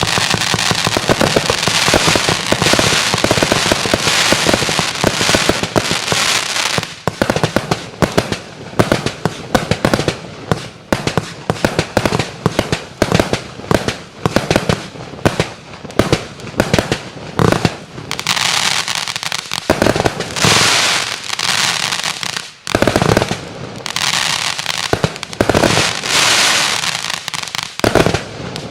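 A 130-shot 1-inch compound fireworks battery (Firestorm 1.0" BOOM! Showbox) firing. For the first several seconds the shots come in a dense, rapid volley mixed with crackle. After that they come as separate sharp shots, several a second, with stretches of crackling breaks in the second half.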